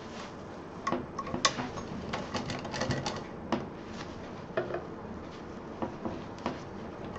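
Scattered light clicks and taps at irregular intervals from handling at a sewing machine, as fabric and a quilted strip are set under the presser foot before stitching.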